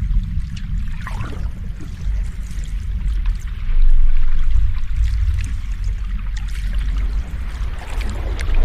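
Sea waves washing in, a continuous rushing noise with a deep rumble, swelling louder about four seconds in.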